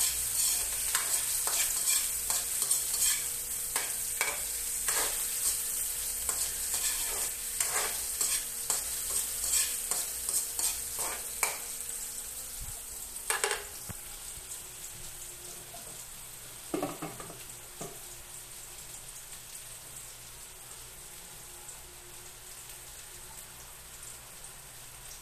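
Ginger sizzling in hot oil in a wok while a small metal ladle scrapes and clicks against the pan. The stirring clicks die out about halfway through, with a couple of louder knocks after, and the sizzle grows fainter.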